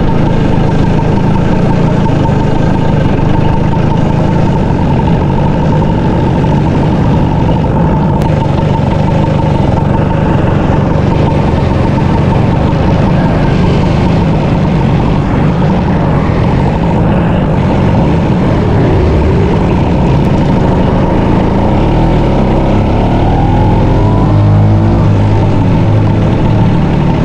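Two-stroke Vespa PX scooter engine running steadily under way, mixed with wind and road noise. Near the end the engine note changes pitch.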